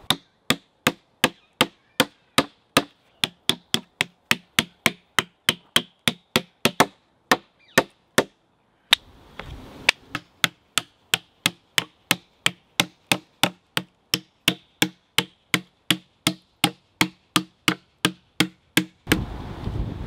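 Mallet driving a chisel into a green oak slab, cutting recesses for wooden key patches over the splits. The knocks come steadily, about three a second, with a pause of about a second just past the middle.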